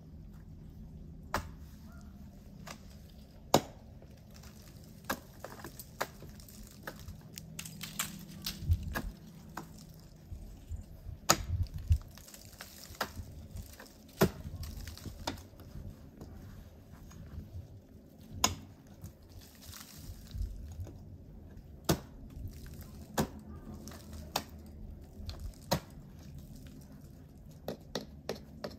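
Ice axe picks and crampon front points striking and biting into thin ice: irregular sharp taps and cracks, some louder than others, over a low rumble.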